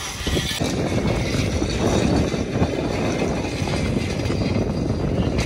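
A steady, low engine drone.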